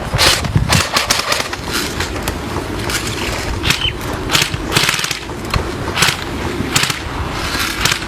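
Irregular sharp pops of air-powered war-game guns firing, some in quick pairs, over a steady low rumble.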